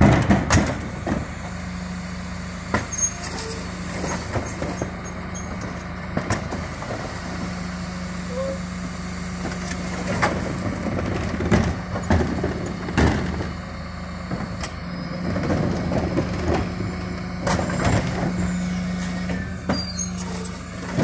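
Rear-loading refuse truck with Terberg OmniDEL bin lifters running as wheelie bins are raised and tipped into its Heil Powerlink hopper: a steady mechanical hum from the truck, broken a few times, under repeated knocks and bangs of the plastic bins against the lifter and body.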